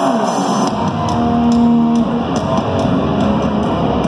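Live heavy-metal band starting a song through an arena PA: an electric guitar riff, with bass and drums coming in under it about a second in. It is loud and heard from the crowd in a large hall.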